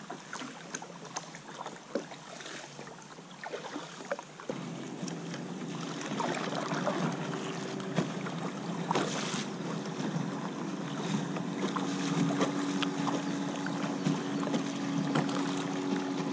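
Water lapping and dripping around a kayak, with small paddle splashes and clicks. About four and a half seconds in it changes to louder, steadier water and wind noise on open water, with a faint steady low hum.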